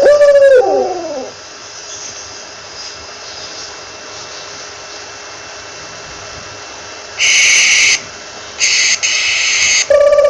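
Owl calls: a loud call right at the start that slides downward in pitch for about a second, then two harsh, hissing screeches, one about seven seconds in and a longer one about nine seconds in, over a steady faint hiss.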